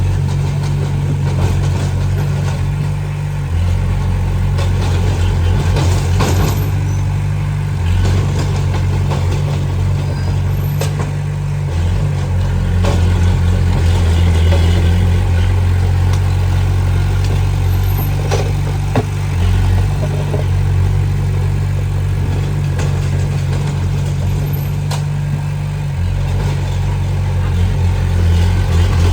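Diesel engine of heavy earthmoving machinery running, its low note shifting up and down every few seconds as the load changes, with a few short knocks.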